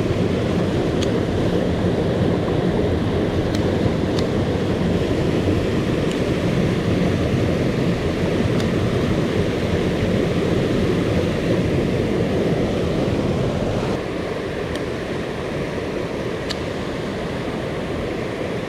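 Mountain stream water rushing steadily, a full even wash of noise. The level drops slightly about fourteen seconds in, and a few faint high ticks sound over it.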